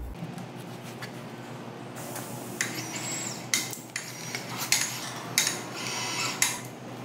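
A handful of sharp metallic clinks and rattles, starting about two and a half seconds in, each with a brief high ring, as steel lifting gear is handled while a sling is rigged around a steel hydraulic cylinder rod.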